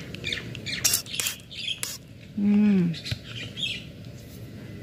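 Small birds chirping: many short, high notes scattered through, with a few sharp clicks. A brief low vocal sound comes about two and a half seconds in.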